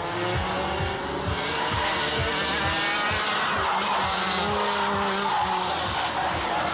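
Several racing karts' two-stroke engines running around the circuit, each pitch rising and falling in turn as the karts accelerate and lift off through the corners.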